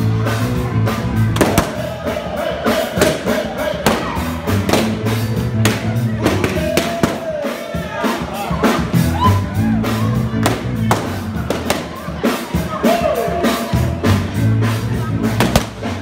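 Many balloons popping in quick, irregular succession over loud dance music with a steady bass, as a crowd of dancers bursts them.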